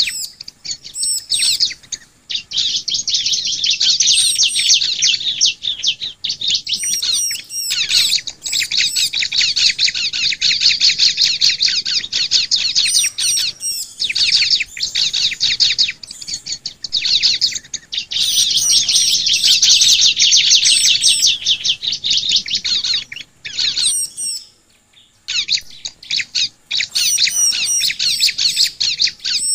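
Ciblek (prinia) singing: long runs of rapid, high chattering notes lasting a few seconds each, broken by short pauses, with thin high notes between the runs.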